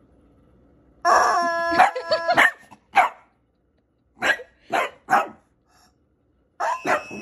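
A rubber chicken toy is squeezed into one long, loud squawk of steady pitch about a second in. A miniature dachshund then barks at it in several short barks.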